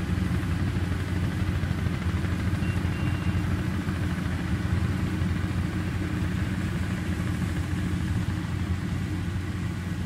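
Yanmar YH850 combine harvester running steadily while cutting rice: an even, low engine rumble with the machinery's noise on top.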